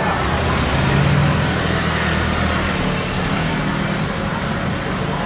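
A low, steady engine rumble, loudest about a second in and easing off after about three seconds, over a general hiss of background noise.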